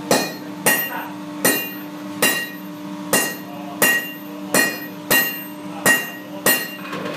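Two sledgehammers taking turns striking hot iron on an anvil, a sharp ringing clang about every three-quarters of a second, around ten blows in all.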